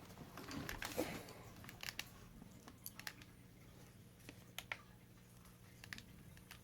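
Scattered light clicks and taps of hands working on a laptop, irregularly spaced, over a faint steady low hum.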